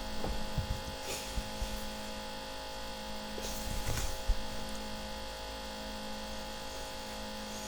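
Steady electrical hum made of several fixed tones, over a low rumble, with a few faint brief rustles.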